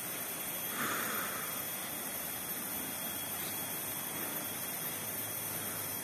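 Steady, even hiss of outdoor ambience, with a brief faint higher-pitched sound about a second in.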